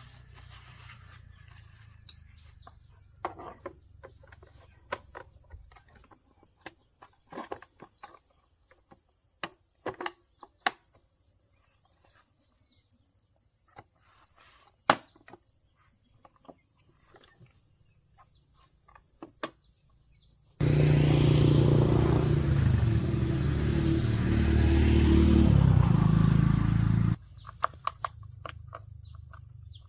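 Scattered clicks and metal taps of hand work, then a motor runs loudly for about six seconds and stops abruptly.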